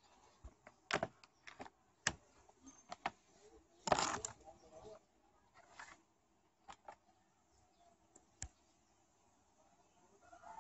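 Quiet, scattered clicks and knocks, with a brief rustling burst about four seconds in: handling noise from moving the laptop and camera.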